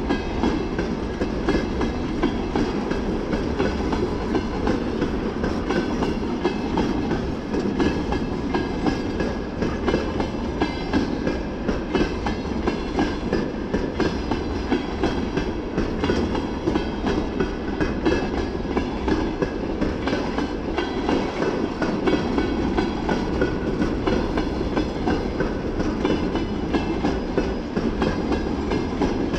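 Railway tank cars of a long freight train rolling past at steady speed, their wheels clattering continuously over the rail joints.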